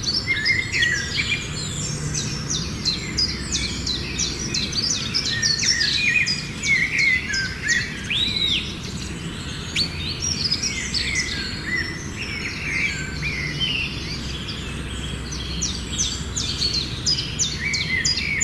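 A group of sparrows chirping, with many quick overlapping chirps running on without a break, over a low steady background rumble.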